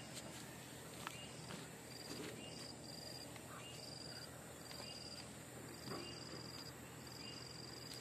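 Faint insect calls: a short, steady high note repeating roughly once a second over quiet outdoor background, with a few faint knocks.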